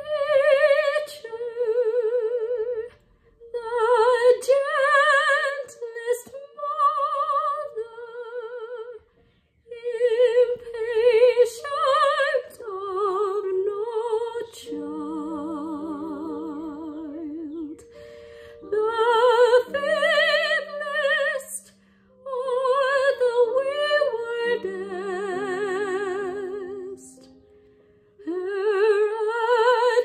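Soprano voice singing an art song with a wide, even vibrato, in phrases of a few seconds with short breaths between them, over a piano accompaniment.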